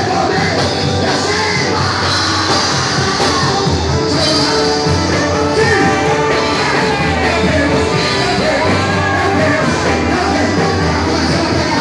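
Live amplified gospel band music with a male lead singer on a microphone, accordion, hand drums and drum kit, and the congregation singing along.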